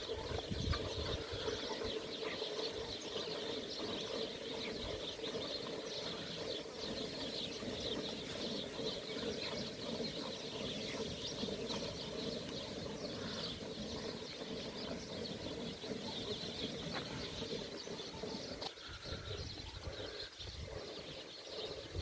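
Birds chirping steadily over the squirts of a cow being hand-milked by two milkers into a steel bucket.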